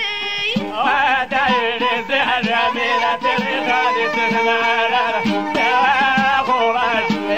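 Middle Atlas Amazigh folk music: a wavering, ornamented melody line over percussion strikes.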